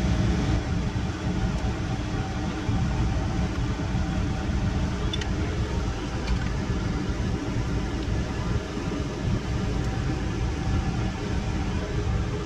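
Steady mechanical hum of running equipment, like a fan or air handler, with a couple of faint light clicks about midway as the circulator motor and its bracket are worked off the pump shaft.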